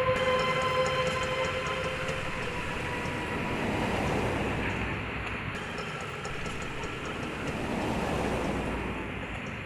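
Road traffic: a steady rumble that swells as cars pass, about four and eight seconds in. A held tone fades out over the first few seconds.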